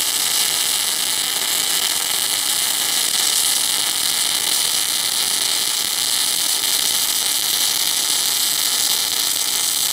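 Semi-automatic MIG/MAG welding arc burning steadily while a wide 10 mm fillet bead is laid: a continuous, even crackling hiss with no breaks in the arc.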